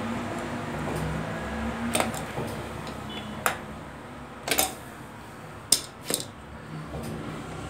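A handful of sharp metallic clinks, some in quick pairs, as a bicycle bottom-bracket cup is unscrewed by hand and drawn out of the frame's shell, over a steady background hum.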